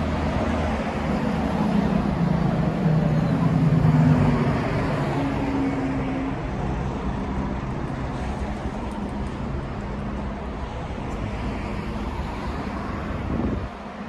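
Road traffic: a motor vehicle's engine hum swells as it passes, loudest about four seconds in, over a steady outdoor traffic noise.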